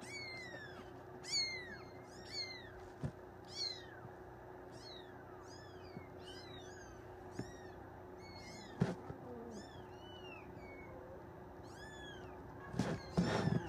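Three-week-old Bengal kittens mewing: short, high-pitched mews that fall in pitch, one or two a second. A burst of rustling noise near the end.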